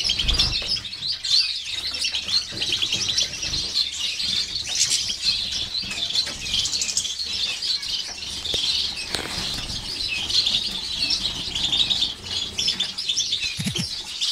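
A cage of small finches, Gouldian finches among them, chirping and twittering in a dense, continuous chorus, with wings fluttering as birds fly between perches.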